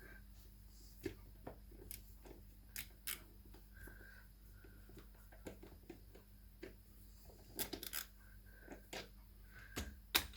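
Faint, scattered metal clicks and taps from a tool working a nut off a penny board wheel's axle, with a few faint squeaks.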